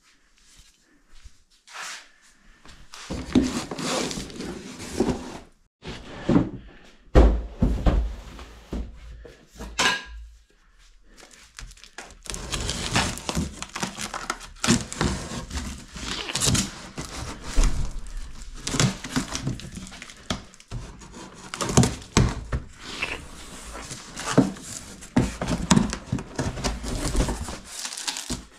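A taped cardboard box being hacked and cut open with a meat cleaver: irregular thunks and scraping, with cardboard and packing tape tearing and crinkling. The handling is sparse at first and becomes continuous about halfway through.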